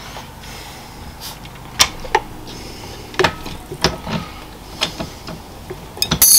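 Milling machine running with a slitting saw spinning on its arbor: a steady low hum with irregular sharp metallic clicks and knocks. Near the end comes a burst of loud metal clatter with high ringing, the sign of the slitting saw catching and being damaged.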